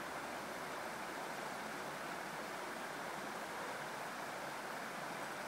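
Small creek's water running, a steady, even rushing.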